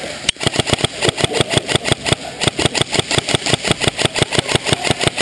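Airsoft rifle firing a long full-auto burst: a steady, even stream of shots at about eight or nine a second, starting a moment in and lasting nearly five seconds.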